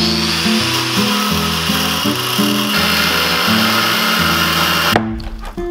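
Handheld angle grinder running at full speed and cutting into metal fixed in the boat's timber frames, throwing sparks; it stops suddenly about five seconds in. Background music plays underneath.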